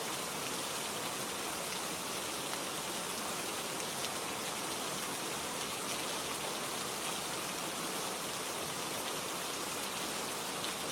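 Steady rain falling, an even hiss with faint individual drop ticks.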